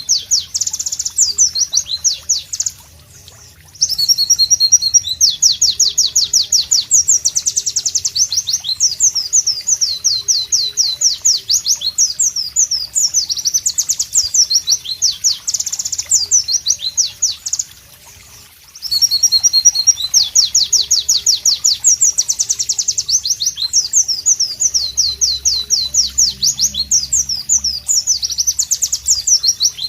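White-eye (pleci) singing long, rapid, high-pitched trilling phrases of fast sweeping notes, with two short pauses about three and eighteen seconds in.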